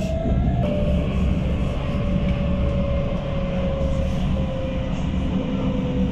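Montpellier tram running on its line: a steady low rumble with an electric motor whine that slowly falls in pitch.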